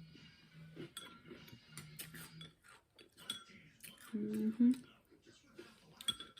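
Metal spoon clinking and scraping against a cereal bowl in a run of small, sharp clicks, as cereal and milk are eaten. A short voiced "mm" comes about four seconds in.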